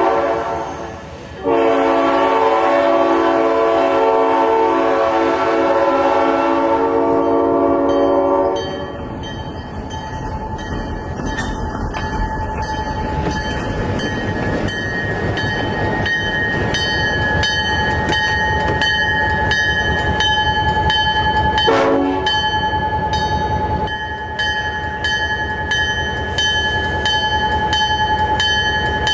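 Diesel locomotive's multi-chime air horn: a short blast, then a long chord blast of about seven seconds. After it the passing train rumbles and clatters while a steady ringing with evenly spaced strikes, like the locomotive bell, carries on, and the horn gives another brief toot about 22 seconds in.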